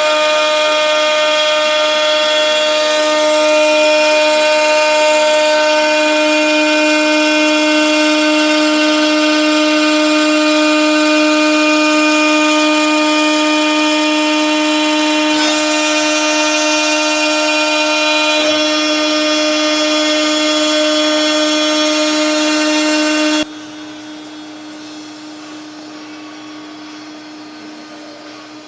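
CNC router spindle running at a steady high pitch while machining metal. About 23 seconds in the loud whine cuts off suddenly, leaving a quieter steady noise.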